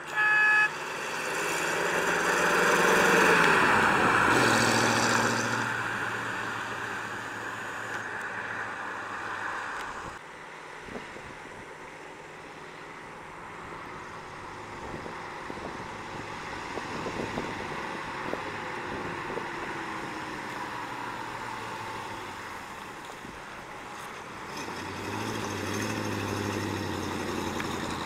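1953 Mercury Monterey's 4.2 L flathead V8 driving past, with a short honk of the horn at the start. The engine is loudest as the car passes close about three to four seconds in, then fades away, runs quietly at a distance, and comes close again at low speed near the end.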